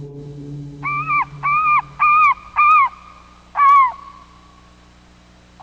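Gulls calling: four short, even calls in quick succession about a second in, then a fifth about a second later. A low steady drone fades out under the first calls.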